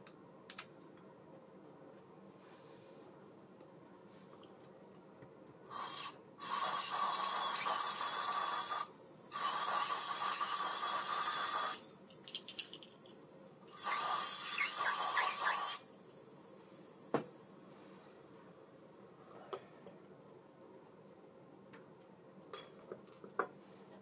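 Three hissing blasts of aerosol spray, each about two seconds long, starting and stopping abruptly, as parts of a baitcasting reel are sprayed during cleaning. A few light clicks of small metal parts come later.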